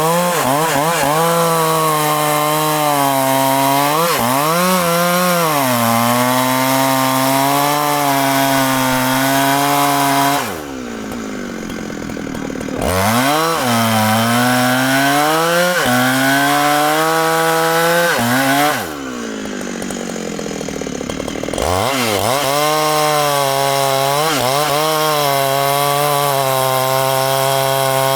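Large two-stroke Husqvarna chainsaw cutting into a thick tree trunk at full throttle, its pitch sagging and recovering as the chain loads up in the wood. Twice, about ten and nineteen seconds in, it drops to idle for a few seconds, then revs back up into the cut.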